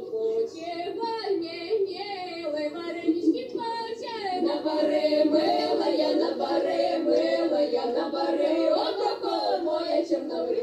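A group of young women singing a Russian folk song a cappella, several voices together; the singing gets louder about four seconds in.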